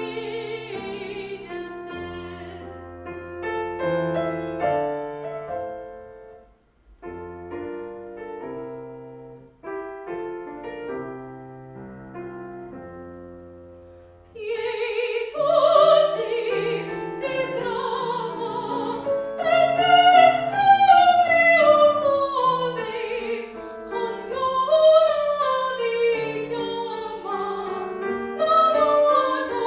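Classical recital music: a piano plays alone at first, and about halfway through a trained operatic voice comes in with vibrato, singing over the piano accompaniment.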